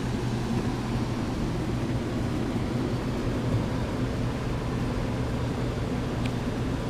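Attic HVAC unit running: a steady low hum with a rush of air noise over it.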